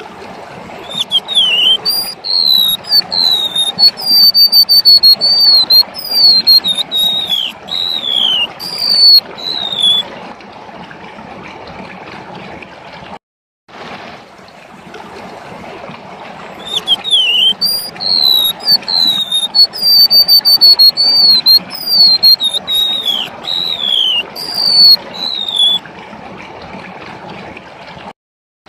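Golden-bellied gerygone (remetuk laut) singing: a run of high, thin whistled notes, many sliding downward, lasting several seconds, then the same phrase again after a pause. A steady trickle of running water sounds underneath.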